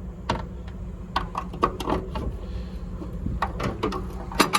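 Metal hand tools clinking and knocking in a steel toolbox drawer as they are handled: a string of short irregular clicks in a few clusters, over a steady low hum.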